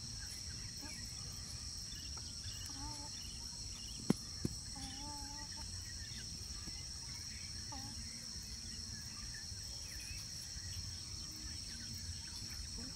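Steady high-pitched chorus of insects trilling without a break, with two sharp clicks about half a second apart some four seconds in.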